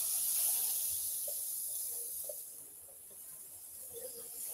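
Waffle batter sizzling on the hot plates of a waffle iron as it is poured in and spread with a spatula; the hiss is loudest at first and dies down after about two and a half seconds.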